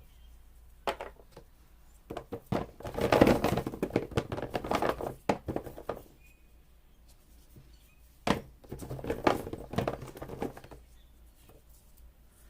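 Paper sheets being handled and shuffled: rustling and light taps in two bouts, one about two seconds in and one about eight seconds in.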